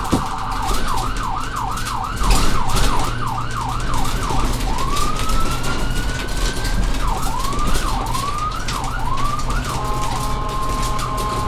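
Electronic emergency-vehicle siren switching between modes. It gives a fast yelp of rapid up-and-down sweeps, then one slow rising wail about halfway through, more yelps, and a steady tone near the end. A sharp click sounds right at the start.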